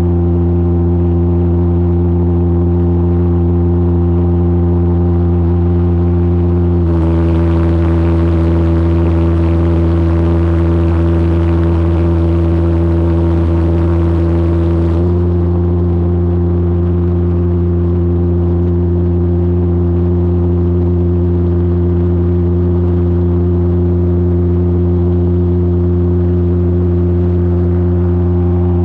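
Maddoxjets triple valveless pulsejet engine running flat out on a moving go-kart: a loud, deep, steady buzzing drone that holds one pitch. For several seconds in the middle a rushing hiss joins it.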